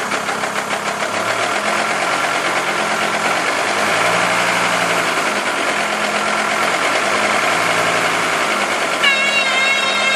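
Volvo V70 running with steady cabin and road noise, under it a low drone that swells and fades several times, from a set of GSP wheel bearings that the owner calls noisy. A warbling high whine comes in near the end.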